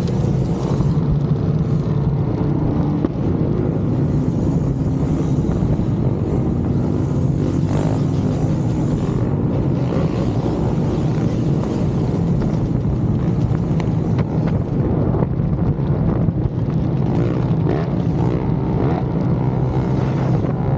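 Motorcycle engine running steadily while riding, with no clear revving or gear changes.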